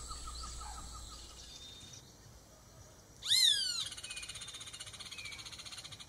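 Roadside hawk giving a single nasal scream about three seconds in, a short call that rises briefly and then slides down in pitch. A fast, even pulsing trill follows it.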